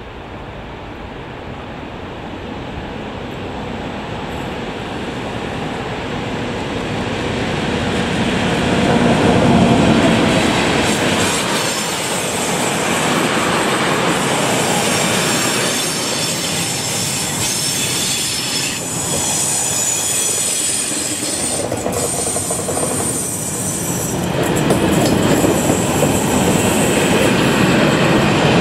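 Electric freight train passing: the E652 locomotive's approach grows louder to a peak about ten seconds in. A long rake of covered freight wagons then rolls past with steady wheel clatter and a high-pitched wheel squeal.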